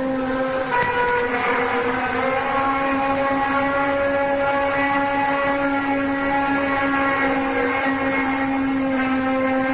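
The so-called 'strange sound from the sky': a loud, steady droning hum held on one low note, with a stack of higher tones above it that shift slightly in pitch.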